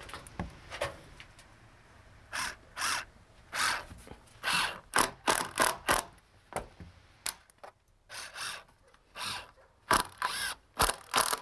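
Cordless drill driving long decking screws through a pressure-treated wood sill into the house framing, run in short bursts of the trigger, the bursts coming closer together near the end.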